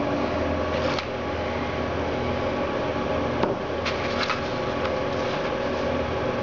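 Steady background hum and hiss, with a few light taps and plastic clicks about three and a half to four and a half seconds in as an e-cigarette and its plastic blister pack are set down on a table.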